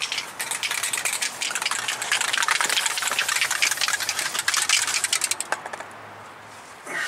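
A power tool running with a rapid, dense clatter, ending about six seconds in.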